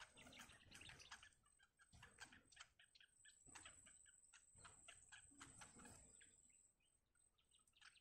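Bittern nestlings giving faint, rapid ticking begging calls as the parent feeds them at the nest. A thin, high, steady whine runs through the middle few seconds.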